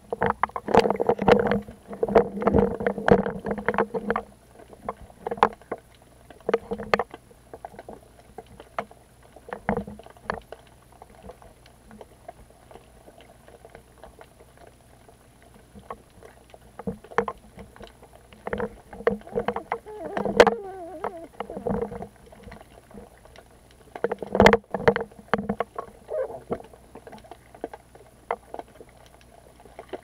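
Swimming strokes heard underwater: muffled sloshing and knocks coming in irregular bursts, busiest in the first few seconds and again in the second half, with a quieter stretch around the middle.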